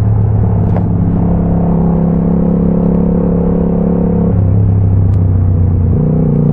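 Motorcycle engine running at low road speed, heard as a dull, low rumble. Its note drops about four seconds in as the bike slows, then steps up again near six seconds as it pulls away.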